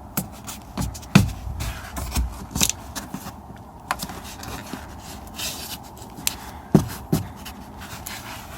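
Hands fitting the insulation sheet back onto the inner panel of a BMW X3 door: scraping and rustling, broken by several sharp knocks. The loudest knock comes about a second in, and two more come close together near seven seconds.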